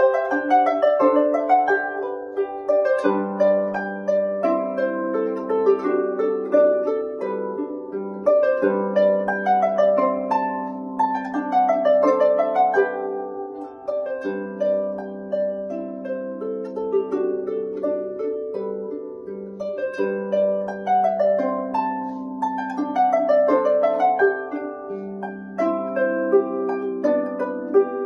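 Solo harp playing a lively plucked melody over a low bass note that rings and is repeated with short breaks.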